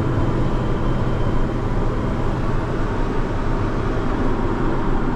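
Diesel engine of farm harvest machinery running at a steady speed, a low even drone.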